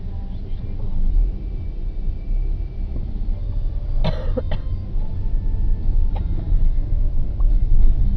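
Low rumble of a Skoda Octavia A7 heard from inside the cabin as it drives off, gradually getting louder, with one short cough about four seconds in.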